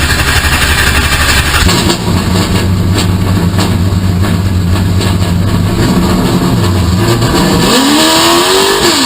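Late model stock car's V8 engine running hard at race speed, its note holding steady and then dropping and climbing again near the end as the car lifts and accelerates.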